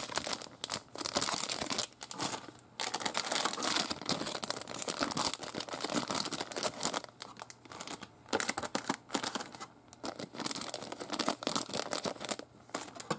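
Thin clear plastic bags crinkling and rustling as they are handled, in spurts broken by short pauses.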